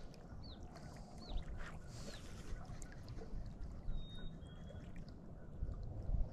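Outdoor ambience: a low, steady rumble of wind and water, with three short high chirps in the first two seconds and a thin whistled note about four seconds in.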